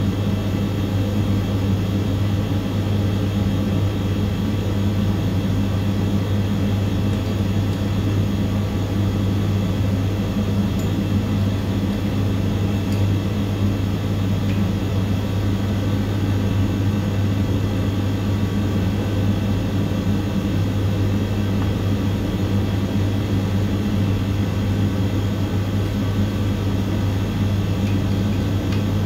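Steady, unchanging low mechanical hum, like a fan or motor running continuously, with a few faint ticks near the middle.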